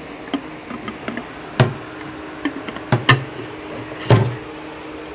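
Clear plastic filter housing bowl being fitted and screwed onto its cartridge-filter head: a series of sharp plastic knocks and clicks, the loudest about a second and a half in, two close together near three seconds, and one about four seconds in, over a steady low hum.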